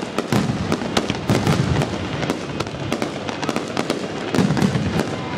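Fireworks going off: a dense, irregular crackle of sharp pops, with three swells of low rumbling booms.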